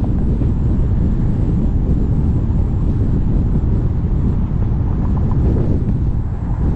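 Steady low rumble of a Ford Fusion driving along a road: tyre and road noise mixed with wind buffeting on the microphone.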